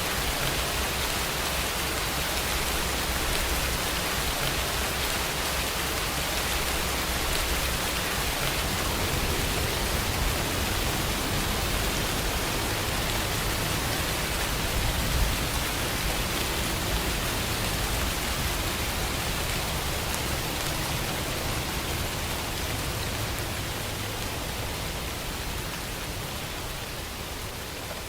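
Steady rain falling, a continuous even hiss with a low rumble underneath, fading slightly over the last few seconds.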